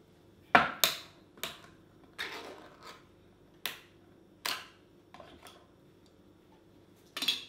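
A tin of sweetened condensed milk being opened: a run of sharp metal clicks and snaps, the loudest about half a second in and a last one near the end.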